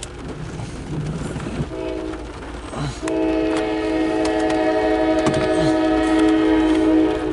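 A CSX freight locomotive's air horn sounding a chord: a short blast about two seconds in, then a long blast of about four seconds, over the low rumble of the train.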